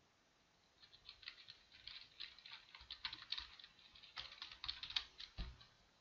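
Faint computer keyboard typing: a quick, uneven run of key clicks that starts about a second in and stops shortly before the end.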